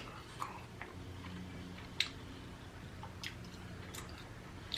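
Quiet close-miked chewing of food, with a few small wet mouth clicks, the sharpest about two seconds in.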